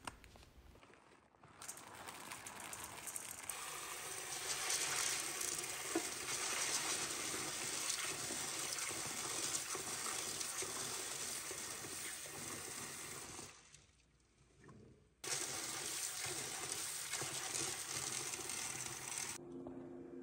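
Kitchen tap water running into a stainless steel colander of soybeans in a sink while the beans are scrubbed by hand. The water cuts off for about a second and a half about two-thirds of the way through, runs again, and stops near the end.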